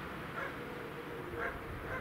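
Two short animal calls about a second apart, over a steady low background noise.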